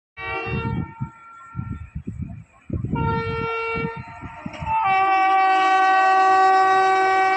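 WAP-7 electric locomotive's air horn sounding two short blasts and then a long held blast, with the rumble and knocks of the running train between the blasts.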